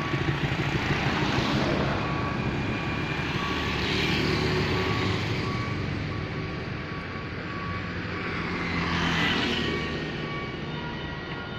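Road traffic passing close by: a small box truck and motorcycles drive past, the engine and tyre noise swelling and fading with each pass. Loud passes come at the start, about four seconds in and about nine seconds in.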